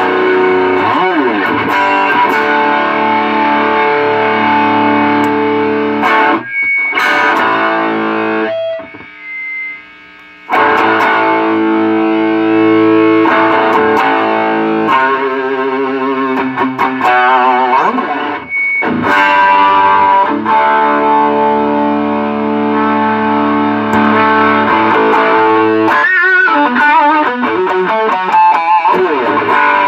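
Electric guitar played through a JHS Double Barrel dual overdrive pedal: overdriven chords and ringing notes, with a brief break about nine seconds in and wavering vibrato notes near the end.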